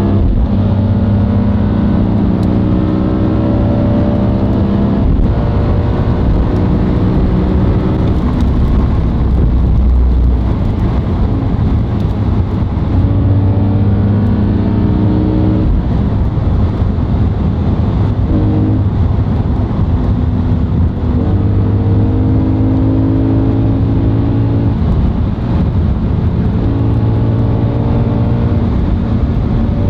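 V10-swapped BMW 1 Series coupe engine under hard acceleration at high Autobahn speed, heard from inside the cabin. The engine note climbs through the revs and falls back several times, over steady road and wind noise.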